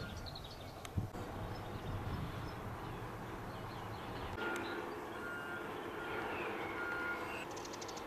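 Outdoor ambience: a short high beep repeated several times in the second half, with bird-like chirps and a low rumble early on.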